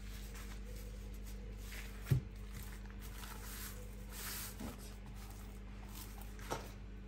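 Ready-rolled puff pastry being unrolled from its baking paper by hand: soft paper rustling and a couple of small ticks, with one dull knock about two seconds in, over a faint steady hum.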